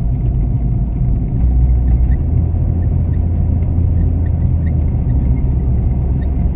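Car running on the road, heard as a steady, loud low rumble of engine and road noise from inside the cabin.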